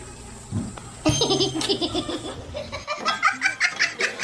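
A person laughing, a quick string of ha-ha sounds starting about a second in and going higher in pitch near the end.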